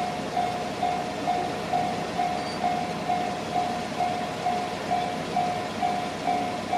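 Japanese railway level-crossing warning bell ringing, a repeated electronic clang a little over twice a second.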